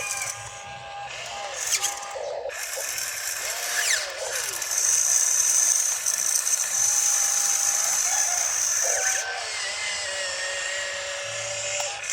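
Small electric motors and gearing of a radio-controlled construction toy whirring, with a steady high whine from about five to nine seconds in.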